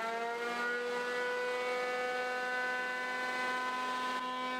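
Jet JJP-8BT jointer/planer's 13-amp motor and 9,000 rpm cutterhead running unloaded between passes with a steady whine. It settles to full speed just after the start, and its pitch begins to drop at the very end as the next board meets the knives.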